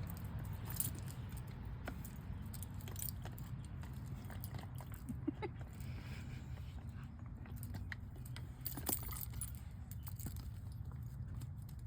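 A dog gnawing on a wooden stick: scattered cracks and clicks of teeth against the wood, over a steady low rumble.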